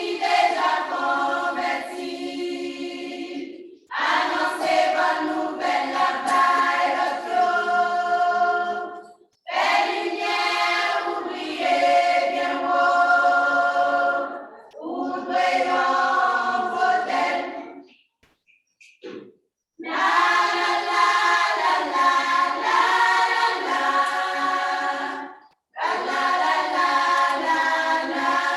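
Choir singing a cappella, in phrases broken by brief pauses, with a longer pause about two-thirds of the way through.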